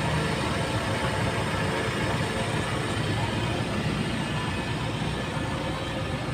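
Suzuki Swift's petrol engine idling steadily, heard from beneath the car.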